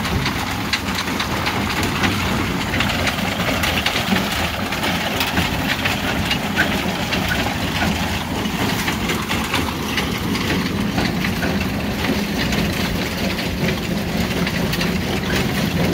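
Engine of corn-chopping machinery running steadily at a constant speed, with a dense rattle of small clicks over the hum.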